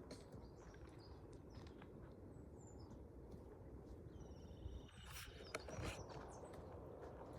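Faint outdoor rural ambience with a steady low rumble, and a short burst of high bird calls about five seconds in.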